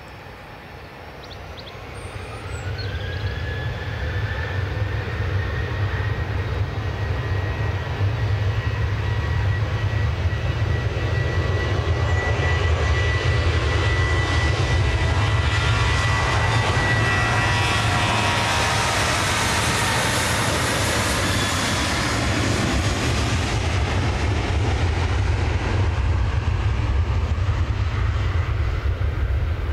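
Boeing 777 jet engines spooling up to take-off power: a whine comes in a couple of seconds in and the sound grows louder over the first several seconds, then holds as a steady loud rumble and hiss as the airliner begins its take-off roll.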